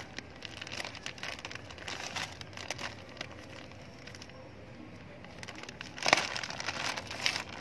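Clear plastic bag of vermicompost crinkling as gloved hands work its knotted neck open, with scattered crackles throughout and a louder run of crinkling about six seconds in.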